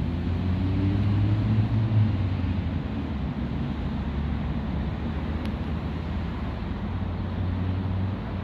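Steady low rumble of passing road traffic. It swells in the first two seconds and again shortly before the end.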